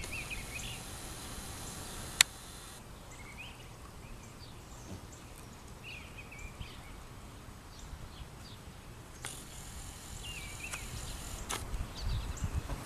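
Outdoor background ambience: a small bird chirps briefly every few seconds over a steady hiss. A single sharp click comes about two seconds in.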